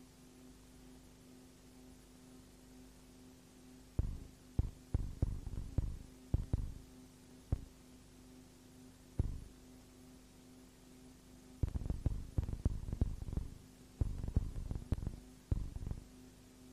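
Steady electrical hum with an even tone, broken by irregular clusters of low thumps and rumbles: a burst of them about four seconds in, a single one near the middle, and a dense run in the last third.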